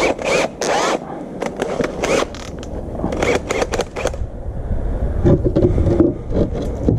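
A steel hole saw with its pilot bit being handled and fitted for drilling, clinking and scraping in a quick string of sharp clicks and rattles. A low rumble with a short hum follows over the last couple of seconds.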